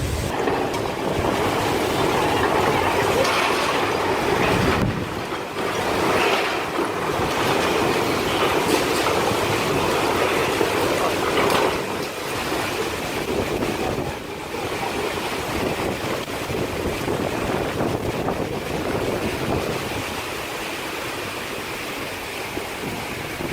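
Fast-moving floodwater rushing, a steady loud noise that keeps on without separate knocks or splashes.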